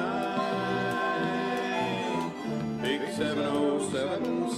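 Resonator banjo picking an instrumental break in a country song, over longer held notes from backing instruments.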